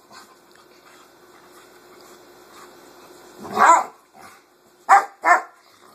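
Dog play-fighting: low growling, then three loud barks, the first longer at about three and a half seconds in and the last two in quick succession near the end.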